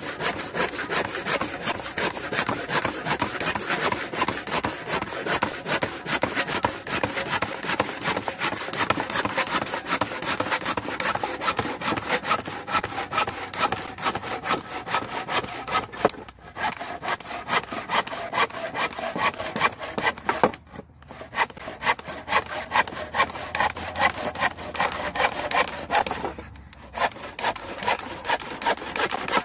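Stanley hand saw cutting through a thick wooden board in fast, steady back-and-forth strokes, with three short pauses in the second half.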